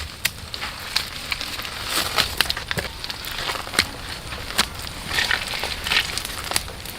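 Irregular crunching and sharp snaps of dry twigs and forest litter, several a second.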